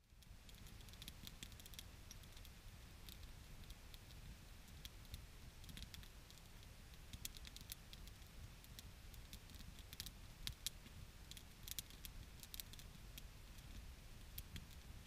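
Small campfire of sticks crackling faintly, with irregular sharp pops and snaps over a low rumble.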